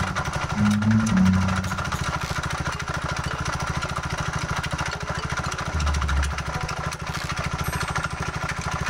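Honda Little Cub's single-cylinder four-stroke engine, rebuilt with a KITACO 85cc light bore-up kit, running at a steady idle with an even rapid beat; the owner suspects it is still damaged, with cam chain slap marks and probably a damaged con rod. Background music plays over the first two seconds, and there is a low thump about six seconds in.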